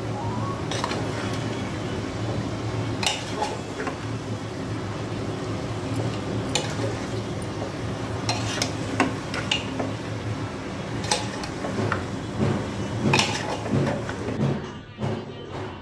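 Metal spoon stirring chunks of spiced mutton in an aluminium pressure cooker: irregular clinks and scrapes of metal on metal, about a dozen over the stretch, over a steady sizzle of the meat frying.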